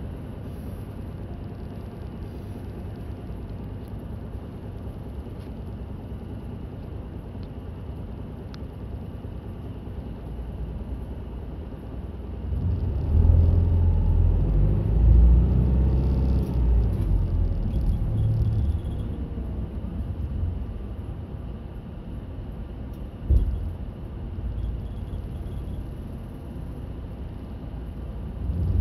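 Route bus heard from inside the cabin: steady engine and road rumble. About halfway through, the engine note grows louder and swells in pitch for several seconds, as under acceleration, then settles back, with a single thump a few seconds before the end.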